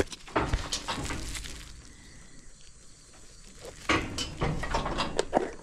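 Metal clanks and clinks of steel cattle-handling gear, with footsteps, in two bursts: one at the start and a louder one about four seconds in.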